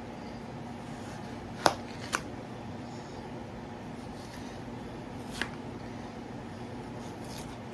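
Watermelon being eaten: a few sharp, wet crunching clicks, two close together about two seconds in and one more later, over a steady hum.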